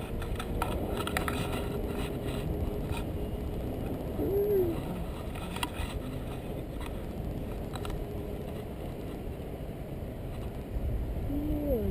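Wind rushing over the microphone of a pole-held camera on a paraglider in flight, a steady low rumbling hiss. About four seconds in, a brief hum of a voice.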